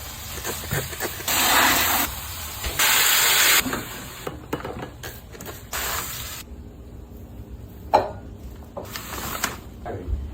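Kitchen work: four short hissing bursts of under a second each, mixed with scattered light clicks and knocks.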